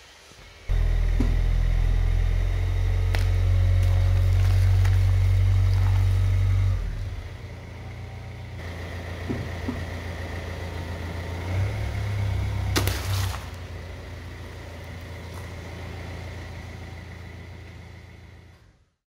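A car engine running low and steady, louder for the first several seconds, as the tyre rolls over water balloons and an ice-filled balloon. A few sharp pops sound as balloons give way, with one loud crack about thirteen seconds in. The engine sound fades out near the end.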